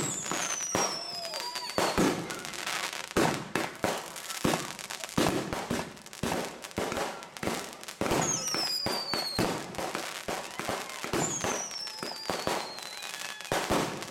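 Consumer fireworks finale going off from a fused rack: a dense, rapid barrage of bangs and crackling bursts, with a falling whistle three times, in about the first two seconds, around eight seconds, and from about eleven to thirteen seconds.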